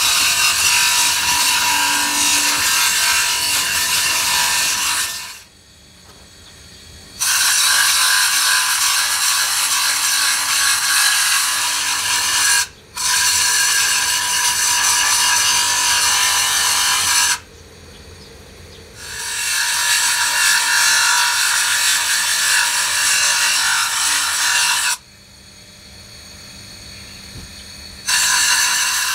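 Steel pinion gear being ground against a thin abrasive disc spinning on a bench grinder: a loud, steady, high grinding hiss in several spells with short breaks between them.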